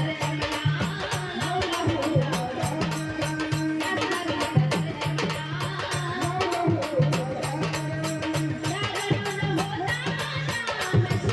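Folk-style Marathi devotional song music: a steady, evenly repeating percussion beat under a gliding melody line.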